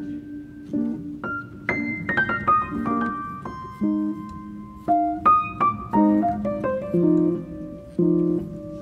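Background piano music: slow notes and chords that ring and fade, with a quick run of falling notes about two seconds in.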